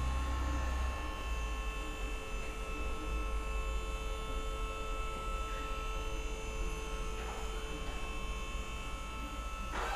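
A steady buzzing hum made of several constant tones over a low rumble, with a faint brief rustle near the end.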